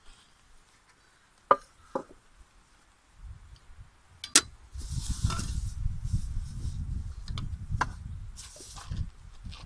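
Food being prepared on a wooden cutting board: a few sharp knocks of a knife and utensils on the board, then about four seconds of rustling and crinkling of plastic food wrapping over a low rumble of handling noise.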